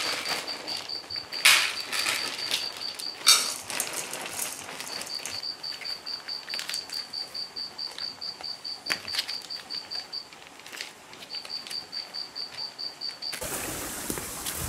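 An insect chirping steadily in runs of high, evenly spaced pulses, about six a second, with a few sharp clicks and knocks from cats eating from food dishes. Near the end a louder rushing noise takes over.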